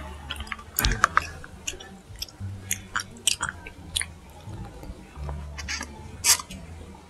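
Close-up mouth sounds of chewing tapioca boba pearls: irregular wet clicks and smacks, with the loudest a little after six seconds in.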